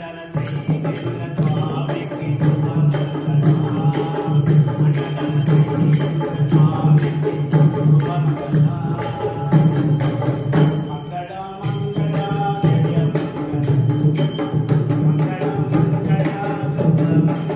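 Devotional bhajan accompaniment: hand-played barrel drums with a pair of small hand cymbals clashing in time about twice a second, and a voice chanting along.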